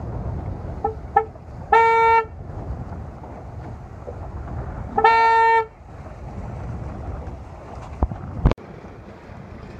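Two short air-horn blasts about three seconds apart, each lasting about half a second: the race committee's finish signal as sailboats cross the finish line. Wind and water noise run underneath.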